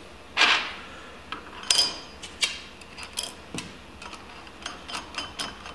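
Small steel parts clinking and rattling as a puller retainer, washer and nut are picked up off a metal bench and fitted onto the puller's leg stud: a few sharp ringing clinks, the loudest about two seconds in, then lighter ticks near the end.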